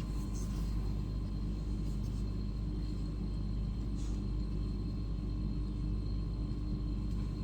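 Steady low rumble of background noise with faint constant hum tones, and a single faint click about four seconds in.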